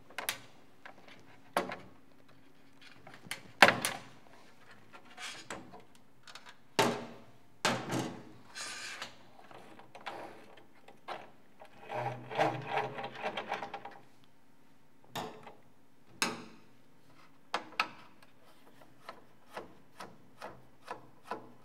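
Hard plastic parts of a wind-up radio's clear case and gear drive clicking, knocking and rubbing as they are handled and taken apart, the sharpest knock about three and a half seconds in. A run of small ticks comes near the end.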